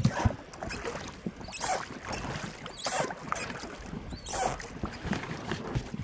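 Small boat coming ashore on a rocky beach: irregular splashing and scraping about once a second, with a few sharp knocks.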